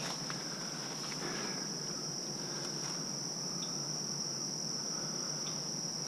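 Steady, high-pitched chorus of insects in a summer meadow, one unbroken buzzing trill, with a few faint ticks.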